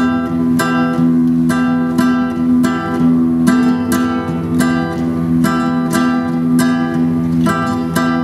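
Two acoustic guitars playing an instrumental interlude: strummed chords struck about twice a second over held low bass notes.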